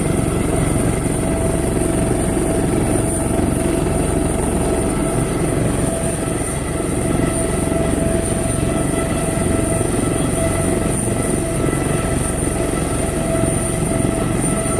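Medical helicopter's turbine engine and main rotor running steadily, ready for take-off: a steady high turbine whine over loud, even rotor noise.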